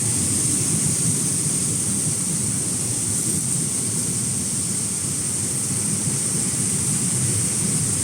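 Air-bubble fruit and vegetable washing machine running: a steady churning of water stirred by blown air, with a constant high hiss over it.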